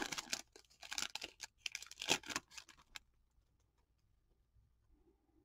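Foil trading-card pack wrapper crinkling and cards being handled: a fast run of crackles and clicks for about three seconds, then it stops.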